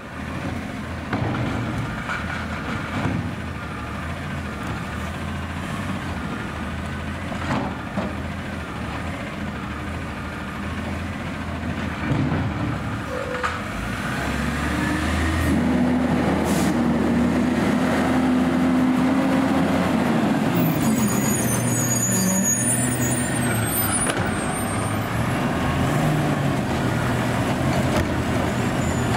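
Automated side-loader garbage truck's engine running. About halfway through it gets louder and its pitch rises, holds steady for several seconds, then drops back, with a few knocks along the way.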